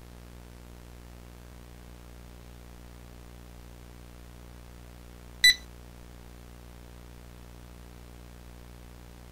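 Steady low electrical hum, broken once about five and a half seconds in by a single short, loud electronic beep.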